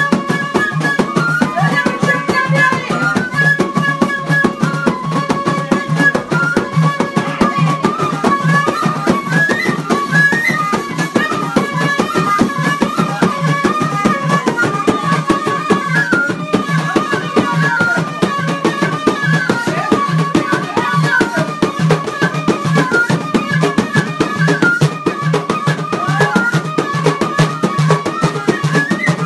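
Moroccan Jilala trance music: a flute plays a winding melody over fast, steady beating of large frame drums.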